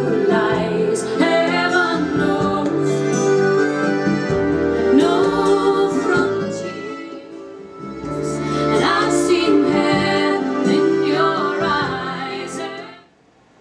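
Music: a woman singing over sustained keyboard chords, fading out briefly near the end.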